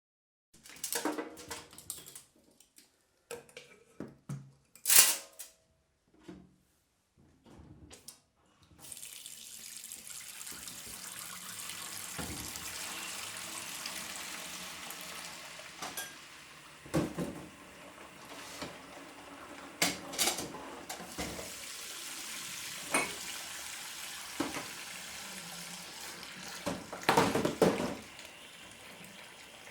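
Washing up at a kitchen sink: dishes and utensils clink and knock against each other, with one sharp ringing clink about five seconds in. About nine seconds in, the tap starts running steadily into the sink, and dishes clatter under the running water every few seconds, with a longer clatter near the end.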